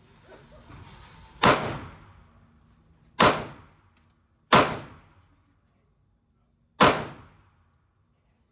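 Four gunshots at an indoor shooting range, irregularly spaced, each sharp crack followed by a short echoing decay.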